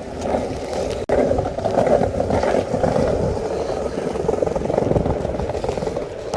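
Skateboard wheels rolling over wet pavement, a steady rumble, with wind on the phone's microphone; one sharp click about a second in.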